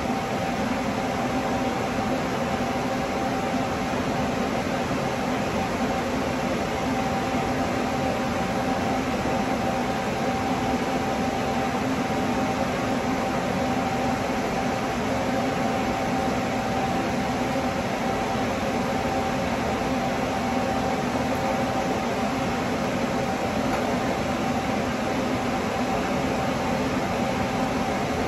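A fan running with a steady whir and a faint constant hum, unchanging throughout.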